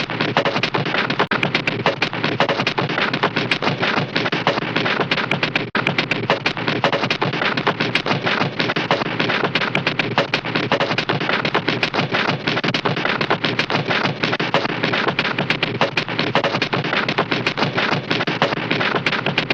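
Hanna-Barbera cartoon bounce sound effect: a fast, even rattle of sharp taps, many a second, with no break.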